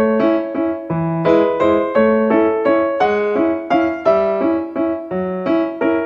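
A light, comic waltz played on keyboard: a low bass note on each downbeat, then two chords, about one bar a second.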